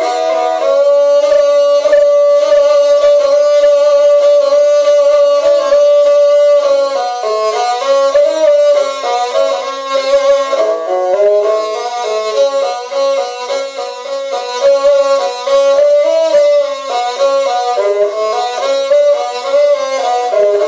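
Kyl-kobyz, the Kazakh two-string bowed fiddle with horsehair strings, played solo: a long held bowed note for about the first six seconds, then a quicker melody of short changing notes.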